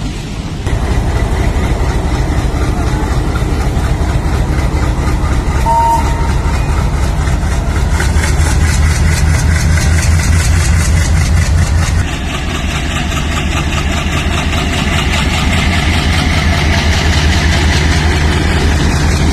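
Indian Railways diesel locomotive engine running, its exhaust chugging in fast, even beats with a heavy low rumble. A brief two-note tone sounds about six seconds in. The sound changes abruptly about twelve seconds in, to a slightly quieter, differently coloured engine note.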